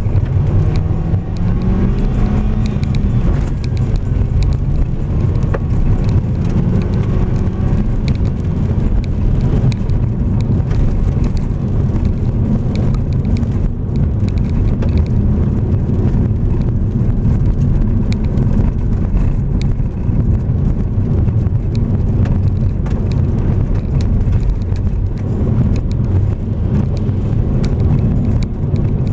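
Car driving on a gravel road: steady engine and tyre rumble with scattered ticks of gravel under the wheels. The engine rises in pitch over the first few seconds as the car picks up speed, then runs steadily.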